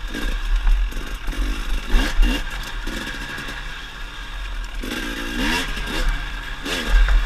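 KTM 300 TPI two-stroke single-cylinder engine revving up and down as the bike is ridden over a trail, with a few sharp knocks and clatter from the rough ground.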